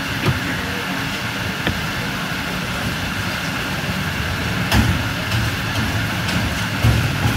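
A knife cutting beef on a wooden chopping block, giving a few short dull knocks, the loudest about five seconds in and another near the end, over a steady background hum.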